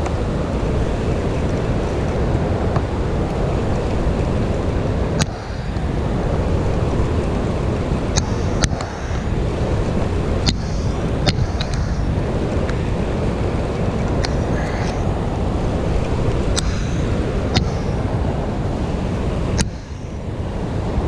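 Steady rush of fast, churning river water in a dam's tailwater, with wind noise on the microphone. A few short, sharp clicks sound at irregular intervals over it.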